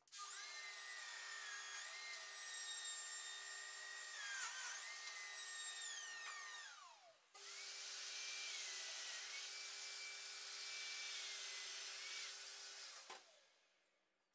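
Domino-style plunge mortise joiner cutting into pine: the motor starts, runs steadily with brief dips in pitch as the cutter bites, winds down, starts again straight away for a second cut, then winds down near the end.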